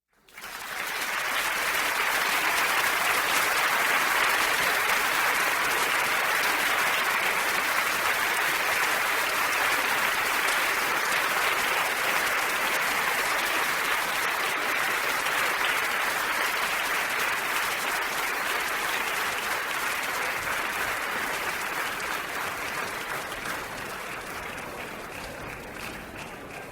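Concert audience applauding: a dense, steady wash of many hands clapping that swells in at the start and slowly dies away toward the end.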